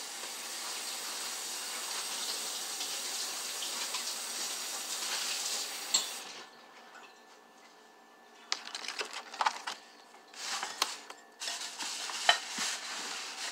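Kitchen tap running as a cutting board is rinsed under it, shut off about six seconds in. After a short pause comes a run of clatters and knocks as the board and kitchenware are handled.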